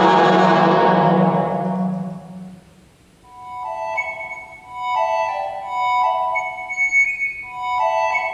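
Electronic music from a wind controller driving a Yamaha WT11 tone generator. A loud, full held tone fades away over the first two or three seconds, and after a short pause, clear high synthesized notes sound in short, overlapping groups.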